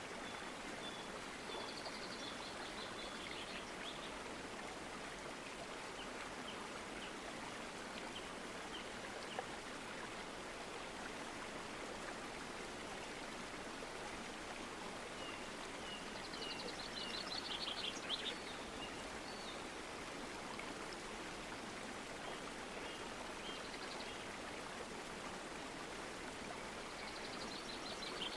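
A steady rushing hiss like running water, with short series of high bird chirps a few times, the loudest a little past the middle.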